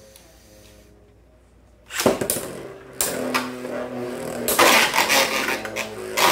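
Beyblade X spinning tops launched into a plastic stadium and battling: a sharp clatter about two seconds in, then continuous loud grinding and clattering of the tops against each other and the stadium walls, loudest around the middle, with a sharp knock at the end.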